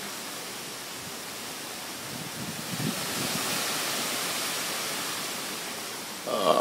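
Hurricane wind rushing steadily and swelling through the middle. A short, loud, partly pitched sound comes near the end.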